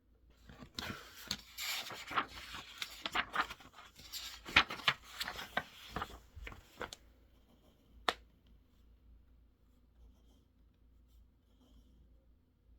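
Scratching and quick tapping at a study desk for about six seconds, then a single sharp click about eight seconds in, with faint room tone after.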